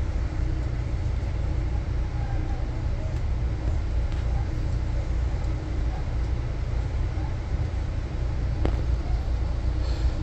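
Steady low rumble of an Amtrak Northeast Regional passenger train running at speed, heard from inside the coach, with one faint click late on.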